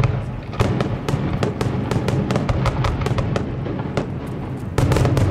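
Fireworks display: aerial shells bursting in quick succession, a dense run of bangs and crackles several a second, growing louder near the end.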